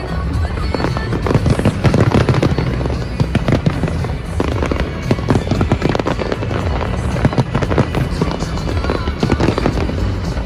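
Fireworks going off in dense, rapid bangs and crackles, over music with a steady low bass.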